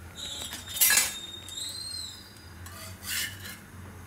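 Steel spatula scraping on a hot iron tawa as it slides under a thepla and flips it. There is a loud scrape about a second in, another near three seconds, and a light knock at the very end.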